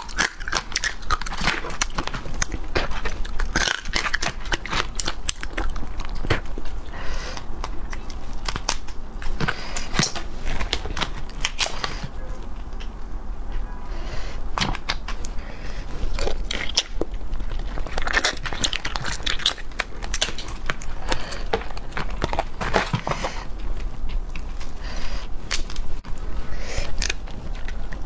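Close-miked biting and chewing of whole raw marinated small crabs, their shells cracking and crunching in many irregular sharp cracks.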